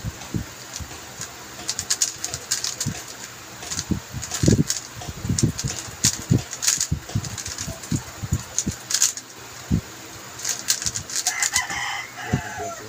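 Layers of a QiYi M Pro 3x3 speedcube turned quickly by hand, making irregular plastic clicks and clacks. A short bird call sounds near the end.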